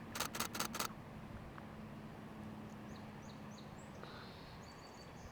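A camera shutter firing a quick burst of four frames, followed by faint, high, short bird chirps and a thin high whistled note near the end.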